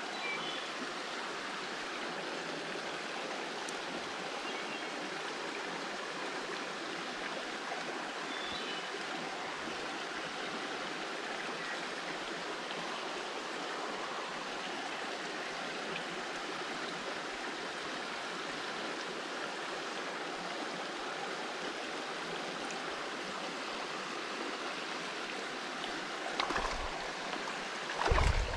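Steady rush of a small, shallow mountain creek running over rocky riffles. A couple of dull knocks come near the end.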